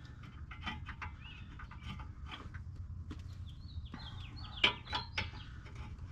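A bird chirping: a quick run of short, falling high notes a little past halfway, over scattered clicks and knocks, the loudest knock just after the chirps.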